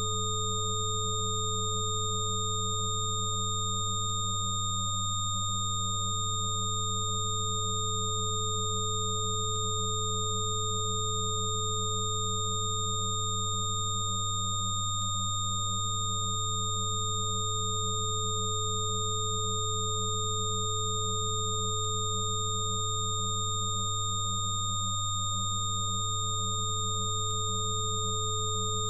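Electronically generated 'frequency therapy' sine tones: several steady pure tones held together, the lowest hum-like tone loudest, with thinner higher tones above it. One middle tone briefly breaks three times, about ten seconds apart.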